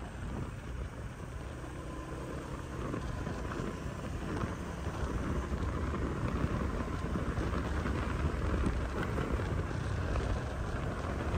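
Motorcycle riding along a city street: steady engine and road noise, a low rumble that slowly grows a little louder.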